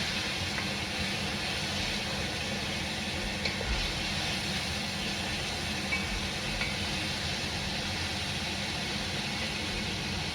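Red wine simmering and reducing in a Dutch oven with the chicken drippings: a steady sizzling hiss, with a few faint light ticks.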